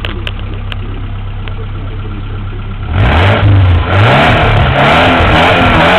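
Subaru EJ22 flat-four engine in a VW T25 van, newly fitted, running steadily and then, about halfway through, revved up and down repeatedly and much louder.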